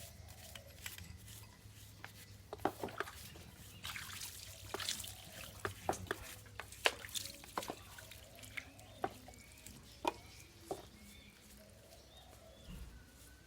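Liquid dripping and splashing with irregular sharp clicks, as of small parts being handled and washed in a liquid such as petrol, some drops giving short ringing plinks.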